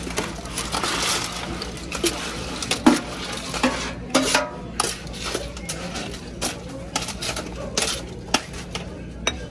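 Serving utensils clinking and scraping against metal buffet pans and dishes while food is dished up, a run of irregular sharp clinks and clatters over a steady low hum.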